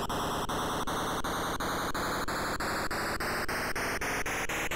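Emulated Apple II one-bit beeper speaker playing a harsh, static-like noise effect that steps through its settings about three times a second, each step marked by a brief break, the steps coming faster near the end. The character of the noise slowly rises in pitch as the setting counts down toward the pure-tone range.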